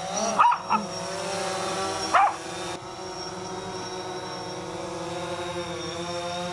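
DJI Phantom 4 quadcopter hovering low with a steady propeller whine, while a Bichon Frise barks three times: two quick barks within the first second and one a little after two seconds in. The barks are the loudest sounds.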